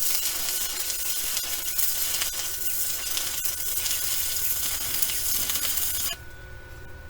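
Stick-welding arc from a Deko inverter welder running a thin 6013 rod at 65 amps: a steady crackling sizzle as the bead is laid on the mower deck steel. It cuts off abruptly about six seconds in as the arc is broken.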